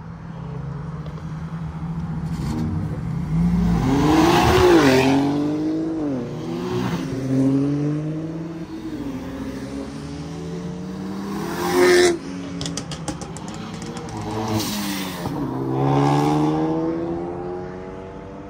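Car engines revved hard as cars accelerate away in turn, the pitch climbing and dropping back several times as they rev and shift. The loudest moment comes about twelve seconds in: a sharp rev followed by a quick run of crackles.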